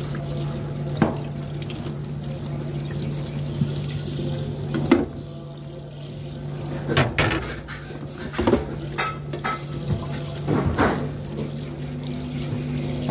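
Tap water running steadily onto a plate and splashing into a stainless steel sink as the plate is scrubbed with a sponge and rinsed, under a steady low hum. Several sharp knocks and squeaks come as the plate is handled.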